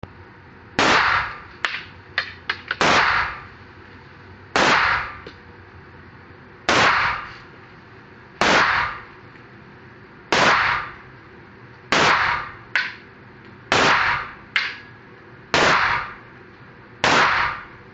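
Taurus 9mm pistol fired as about ten slow, single, aimed shots, spaced roughly every one and a half to two seconds, each sharp crack ringing briefly in the enclosed indoor range. A few fainter sharp cracks fall between the shots, mostly near the start.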